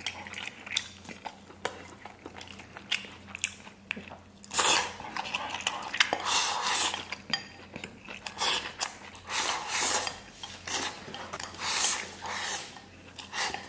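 A man eating braised noodles from a ceramic bowl: repeated slurps of about a second each, with chewing and chopsticks clicking against the bowl.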